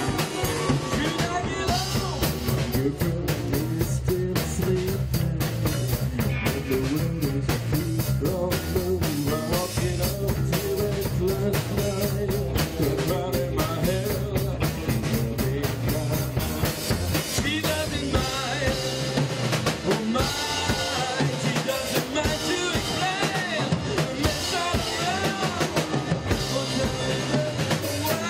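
Live psychedelic rock played by a five-piece band: two electric guitars, electric bass and a drum kit, with a male singer at the microphone.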